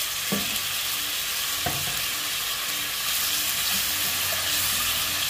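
Diced onion, carrots and peas sizzling in oil in a stone-coated pot while a silicone spatula stirs paprika through them. Two light knocks come in the first two seconds.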